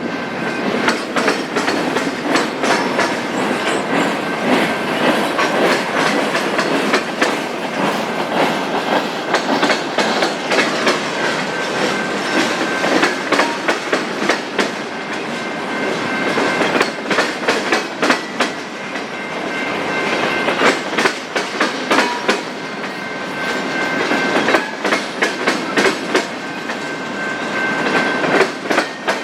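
Freight train rolling past close by, its wheels clacking over the rail joints, with a thin steady wheel squeal at times.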